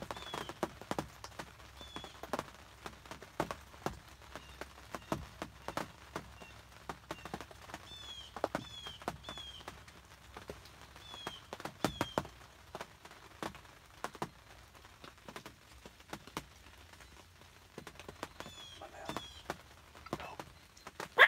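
Scattered, irregular light ticks and taps of dripping rain, with a few faint, short, high falling chirps from a small bird.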